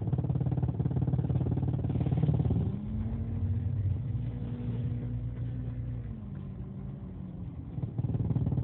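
2001 Jeep Cherokee XJ engine idling in drive with the noise it makes at idle in gear: a loud pulsing drone for the first few seconds, easing into a quieter run with a faint steady hum, then the loud pulsing returns near the end. Revving makes the noise go away.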